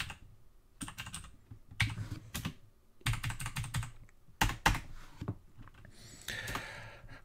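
Computer keyboard being typed on, in several short runs of keystrokes with brief pauses between them.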